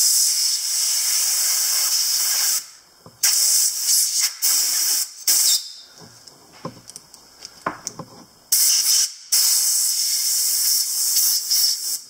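Compressed air hissing from an air-compressor blow gun in four long blasts, pushing soaked-in gunk and solvent out through the joints of an old pocket knife. A few light clicks come in the pause between the second and third blasts.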